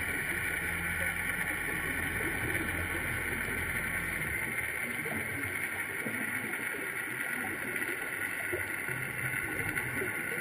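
Muffled underwater ambience picked up through a sealed camera housing: a steady hiss, with a low rumble for about the first four seconds that then drops away.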